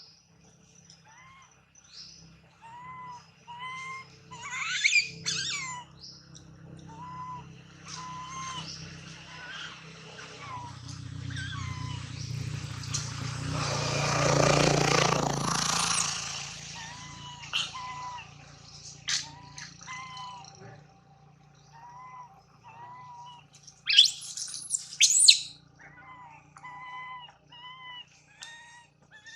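Short arched chirping calls repeat every second or two, with loud shrill squawking bursts about five seconds in and again near the end. In the middle a rushing noise swells up over several seconds and fades.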